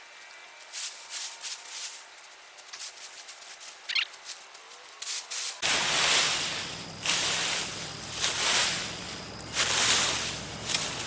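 Potatoes being dug up by hand: soil and plants scraping and rustling. It starts as light rubbing and clicks. About halfway it changes abruptly to four loud bursts of rustling and scraping earth over a steady low hum.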